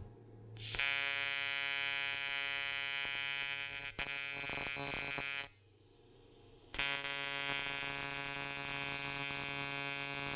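AC TIG welding arc on thin aluminum plate: a steady electric buzz, struck twice to lay two corner tacks. The buzz runs for about five seconds, stops for about a second, then runs again for about four seconds.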